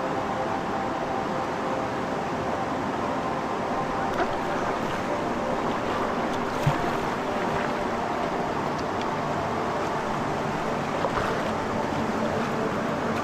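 River water rushing steadily around a raft, with a few short knocks about four, seven and eleven seconds in.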